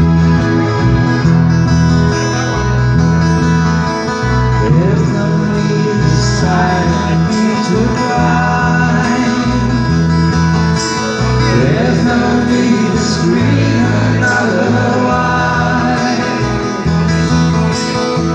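Live band playing a song: acoustic and electric guitars, drums with cymbals and a steady bass line, with a man singing lead.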